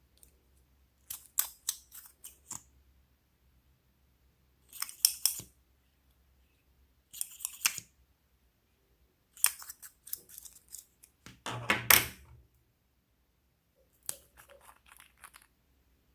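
Slime being pressed and worked by hand, giving crisp crackling clicks in five short bursts with pauses between.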